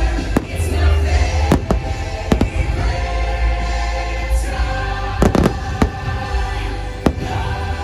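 Fireworks bursting in a series of sharp bangs at irregular intervals, with a quick cluster about five seconds in, over a deep rumble. The show's Christmas music soundtrack plays throughout.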